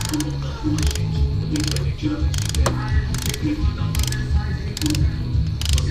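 Background music with a steady beat of sharp clicks about every 0.8 s, over the clicking of a ratchet wrench tightening the camshaft pulley bolts.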